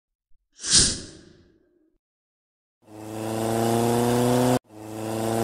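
A whoosh transition sound effect about a second in, fading quickly. From about three seconds a steady droning tone rises slowly in pitch, cuts off suddenly, and starts again.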